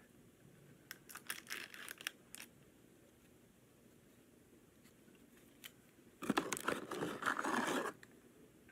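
Fast-food packaging crinkling and tearing as a buffalo dipping-sauce cup is opened. A few scattered crinkles come about a second in, then a louder stretch of crinkling and tearing lasts almost two seconds near the end.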